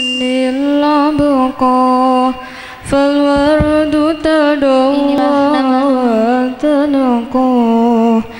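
A single voice singing a slow, ornamented devotional chant: long held notes with wavering turns and glides, in phrases broken by short pauses for breath.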